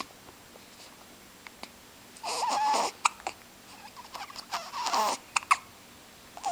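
A two-week-old newborn hiccuping: short sharp hics, with two brief fussy whimpers, the second falling in pitch.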